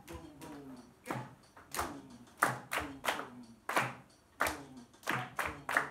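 A group clapping hands in an uneven rhythmic pattern, a few sharp claps a second, with a voice sliding down in pitch between the claps.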